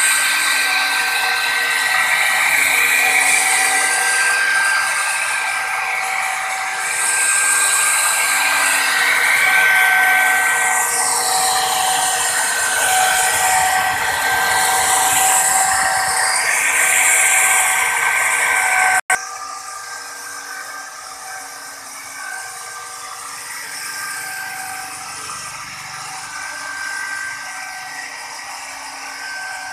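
Handheld electric plunge router running at full speed, its bit cutting a row of round bead shapes into a wooden bed panel, a steady high-pitched whine. About two-thirds of the way through, the sound drops suddenly to a lower level and runs on.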